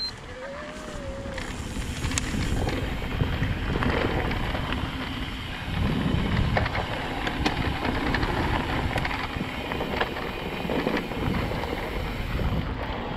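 Wind buffeting the microphone and knobby tyres rolling over a dirt doubletrack as a YT Decoy 29 mountain bike descends at speed. Scattered clicks and rattles come from the bike over bumps, and the noise grows louder about six seconds in.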